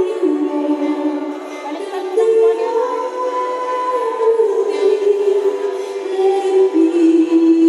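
A slow song with singing, made up of long held notes that shift in pitch every second or so.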